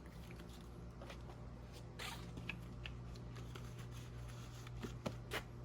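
Faint handling noise: light rustling and a few soft clicks as painting supplies are moved about, over a low steady hum.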